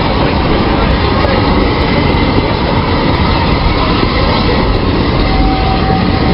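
Train of passenger coaches rolling past on the rails, a steady, loud rumble.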